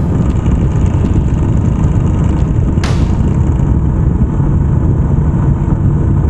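Yamaha Serow 250's air-cooled single-cylinder engine running as the bike rides along wet sand, under a heavy, steady wind rumble on the microphone. A short sharp noise cuts in about three seconds in.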